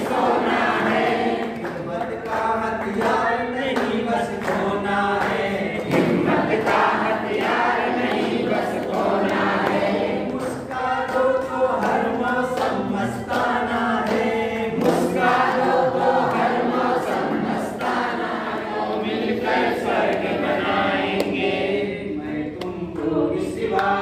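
A group of men and women singing a Hindi song together without accompaniment, with hand claps in time.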